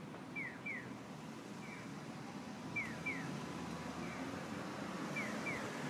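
Electronic pedestrian crossing signal chirping in the Japanese "piyo" style. A pair of quick falling chirps alternates with a fainter single chirp, repeating about every two and a half seconds, over steady street traffic noise that grows a little louder toward the end.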